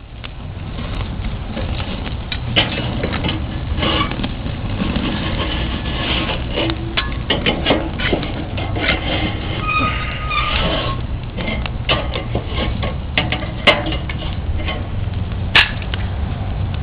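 Chicken drumsticks sizzling over a dying fire in a Weber barbecue, with irregular crackles and pops over a steady low rumble.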